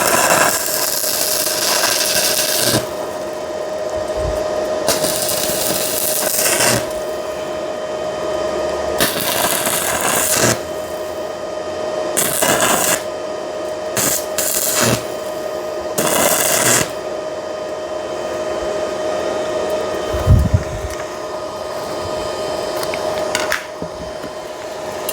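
Stick-welding arc from a 110 V inverter welder crackling and hissing in several separate runs of one to three seconds, the rod being struck and restarted. A steady hum runs underneath, and a low thump sounds about twenty seconds in.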